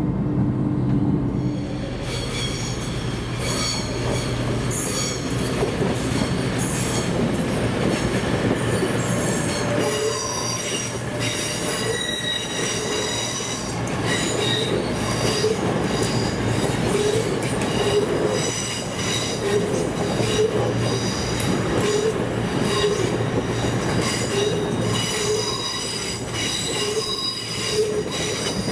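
LNER Azuma train's wheels squealing as it runs slowly over curved track, several high flickering squeal tones over a steady rumble. The first couple of seconds hold a steady low hum instead.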